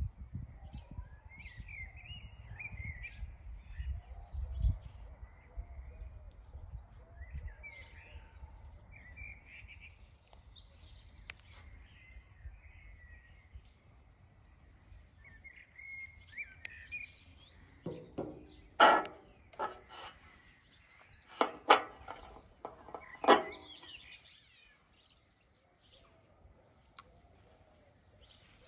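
Birds chirping and singing on and off over a low rumble that fades about halfway through. A few loud sharp clicks come close together a little past the middle, from the bike lights being handled.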